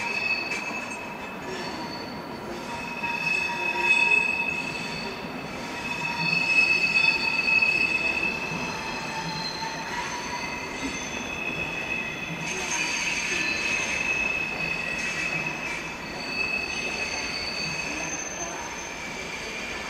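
A slowly moving passenger train's steel wheels squealing as it rolls through curved track and points. Several high-pitched squeal tones sound at once over a low rumble. They swell and fade, loudest about four and seven seconds in, with another burst around thirteen seconds.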